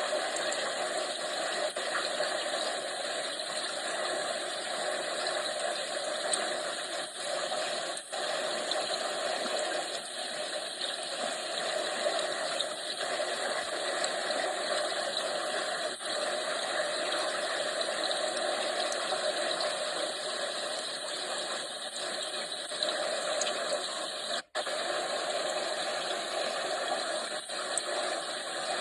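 Aquarium water running steadily, a constant even rush with one very brief break about three-quarters of the way through.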